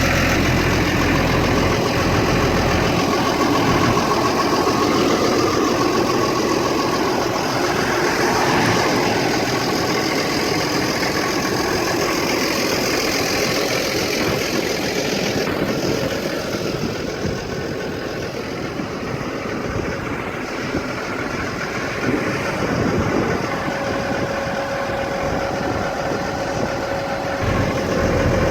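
2009 Case IH Puma 155 tractor's six-cylinder diesel engine running steadily at idle. Its deep low hum drops away about three seconds in and comes back near the end.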